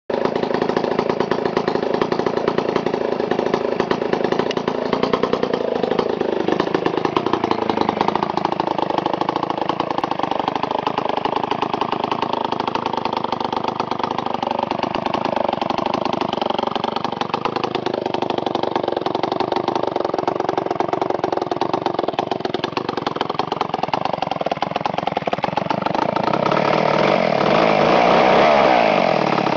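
Homelite 990G two-stroke chainsaw engine running steadily, mostly at idle, its pitch shifting briefly a few seconds in and growing louder near the end.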